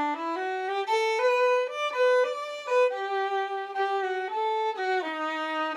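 Interlude music: a solo violin playing a melody one note at a time, the notes changing every half second or so.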